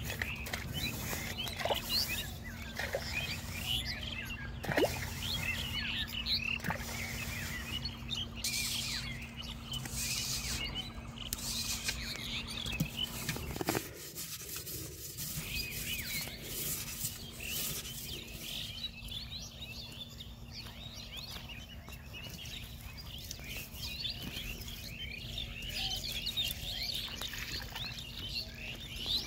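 Small birds chirping and twittering repeatedly in the background, with occasional scraping and handling sounds of wet mud being worked by hand and blade.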